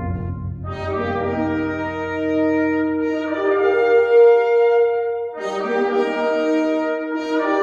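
Orchestral music played back over B&W 802 D3 floor-standing loudspeakers: held brass chords, a new one entering every two seconds or so, over a low drum rumble that dies away about five seconds in.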